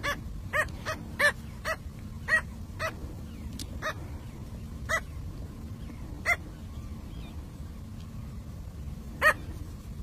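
A bird giving short, harsh, yapping calls, about eleven in all. They come quickly at first, then further apart, with the loudest near the end. A steady low hum runs underneath.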